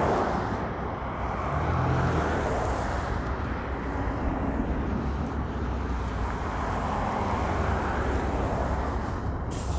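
City transit bus engine rumbling steadily as the bus pulls up and stands at the stop, with a short burst of air hiss near the end.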